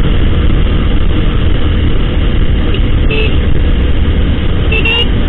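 Steady wind and road rush on the microphone of a Honda motorbike being ridden, with its engine running underneath. Two brief faint tones sound about three seconds in and near the end.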